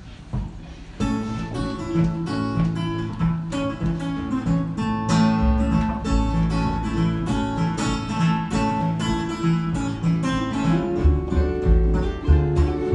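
A tune on acoustic string instruments starts about a second in: a strummed acoustic guitar with a picked melody over it. Deeper low notes join around five seconds in.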